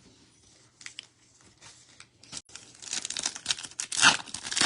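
A trading card pack wrapper being torn open and crinkled: a few faint handling clicks, then from just past halfway a dense burst of crinkling and tearing, loudest near the end.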